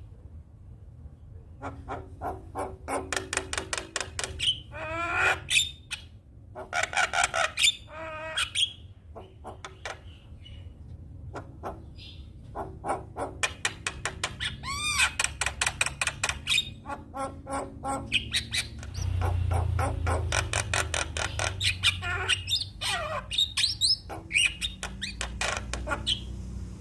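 Javan myna singing in full voice: long runs of rapid clicking rattles mixed with warbles and whistled up-and-down glides, starting about a second and a half in.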